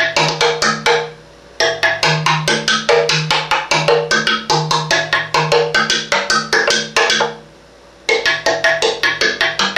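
Wooden tongue drum played with two mallets: fast runs of sharp, pitched wooden notes, several strikes a second, stopping briefly twice.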